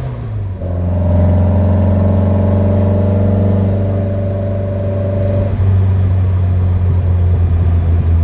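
1965 Volkswagen Beetle's air-cooled flat-four engine on a drive. Right at the start the note drops in pitch and level as the throttle is lifted for a gear change, then about a second in it pulls steadily again at a lower pitch.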